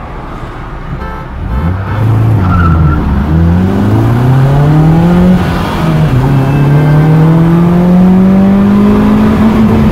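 Car engine accelerating hard at full throttle, heard from inside the cabin. It gets louder over the first two seconds, and its pitch climbs steadily, falling back at two gear changes about three and a half and six seconds in, then climbing again.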